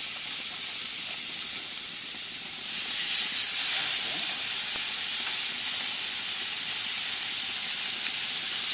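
Marinated boneless chicken thighs sizzling on the hot grates of a gas grill. It is a steady, high hiss that grows louder about three seconds in as more pieces go onto the grill.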